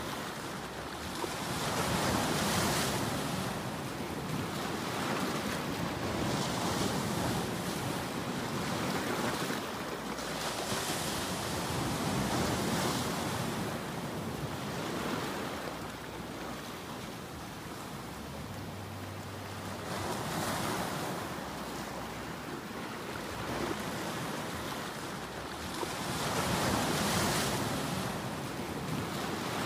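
Ocean surf: a steady wash of waves breaking, swelling and fading every few seconds.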